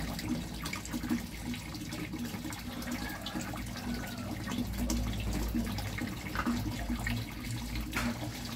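A thin stream of water pouring from a pipe into a koi pond, splashing steadily on the surface, over a low steady hum.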